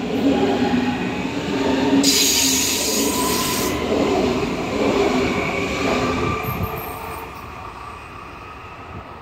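Red DB S-Bahn electric multiple unit passing close by, its drive giving several steady whining tones over the rumble of wheels on rail. About two seconds in comes a hissing rush lasting under two seconds. After that the sound fades as the train moves away.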